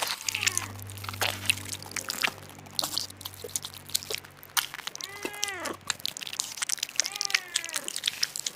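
Domestic cat meowing twice, each call rising then falling in pitch, about halfway through and again near the end, over steady crackling and clicking.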